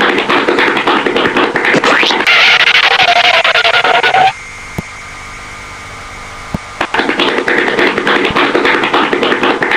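Hanna-Barbera cartoon sound effects: a loud, dense rapid clatter with a short rising tone near three seconds, cutting to a quieter steady hum about four seconds in, then the rapid clatter starts again about seven seconds in.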